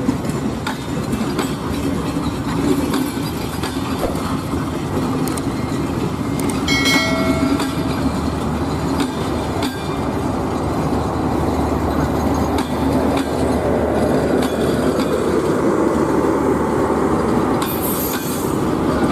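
Train running along the track: a steady rumble with wheels clicking over rail joints. A short pitched tone sounds about seven seconds in, and a high wheel squeal comes near the end.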